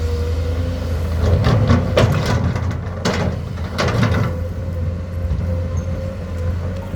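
Komatsu excavator's diesel engine running steadily, with a run of rattling, scraping bursts between about one and four seconds in.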